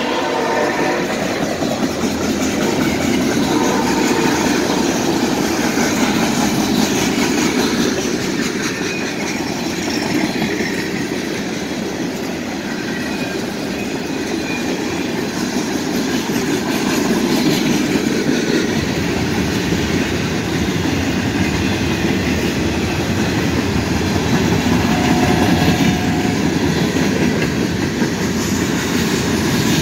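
Freight train cars rolling past: a steady rumble and clatter of steel wheels on the rails.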